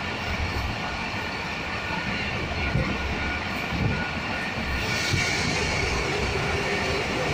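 Moving passenger train heard from a carriage window: a steady rumble of wheels running on the track with a rushing noise. A hiss grows louder about five seconds in.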